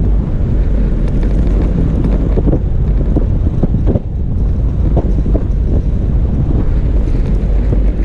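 Toyota FJ Cruiser driving a snowy off-road trail: a steady low rumble of the vehicle with wind buffeting the microphone, and scattered short thumps as it jolts over the rough track.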